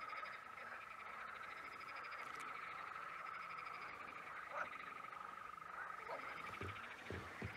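A chorus of many frogs calling from the lake shallows, a dense, unbroken calling with no let-up, and a couple of faint knocks near the end.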